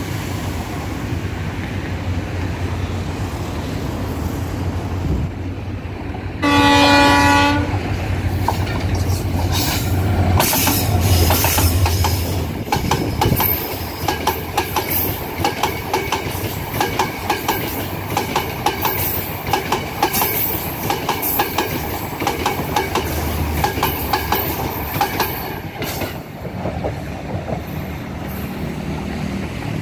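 WDG4D diesel-electric locomotive approaching with a low engine rumble. It sounds a horn blast of about a second, the loudest moment, about six and a half seconds in. Then the coaches pass close by with a rhythmic clickety-clack of wheels over the rail joints, which thins out near the end as the train moves away.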